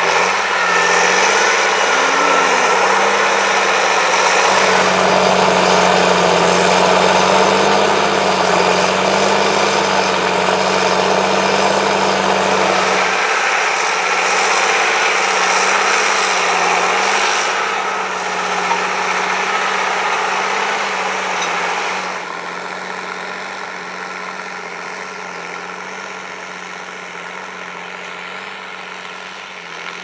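John Deere 8410 tractor's six-cylinder turbo diesel engine running steadily under heavy load while pulling a three-bottom plough through wet, sticky soil. It grows somewhat quieter about two-thirds of the way through.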